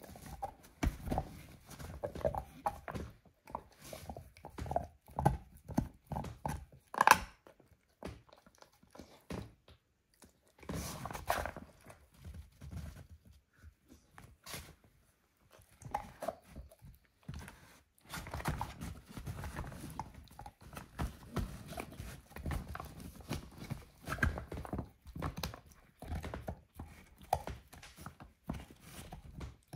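A dog gnawing and crunching a lamb bone: irregular cracks and chews, the loudest crack about seven seconds in. The chewing thins out to a few scattered sounds around the middle, then picks up again as steady, close-set crunching.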